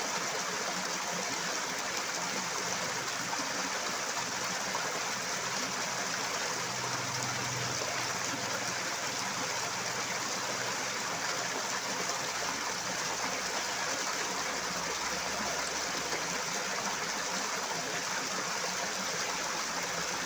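Running water rushing steadily in a loud, unbroken flow, like a stream or small waterfall.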